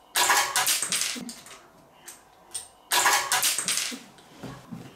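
Plastic monkey game pieces launched from a toy catapult, clattering against a plastic toy tree and onto the table, twice: once at the start and again about three seconds in.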